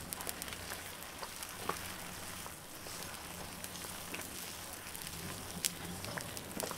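Pot of pap (maize porridge) boiling over a wood fire: a steady hiss of steam and bubbling with scattered small pops and crackles.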